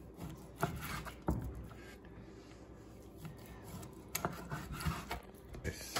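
Knife slicing through a raw pork loin on a wooden cutting board: a faint sawing of the blade through the meat, with a few light knocks on the board.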